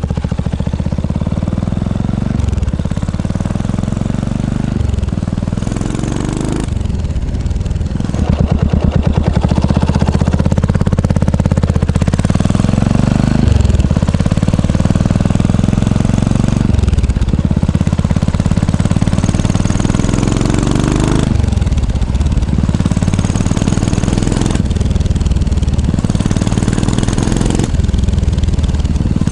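Exhaust note of a Yamaha SR400's air-cooled single-cylinder four-stroke engine, running loud and repeatedly revved, the pitch climbing and then dropping back about every three to four seconds.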